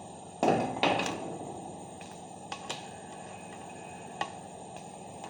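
Handling noises from wiring a magnetic contactor: two rustling knocks in the first second, then a few light clicks of wire and tool against the terminals.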